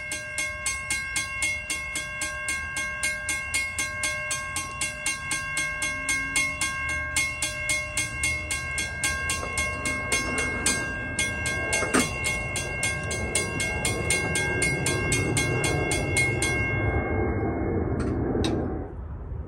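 Railroad crossing bell ringing rapidly, about five strokes a second, then stopping about three-quarters of the way through. Over the second half, a crossing gate arm with a burned-out motor is raised by hand, and its mechanism makes a rising mechanical noise with one sharp click.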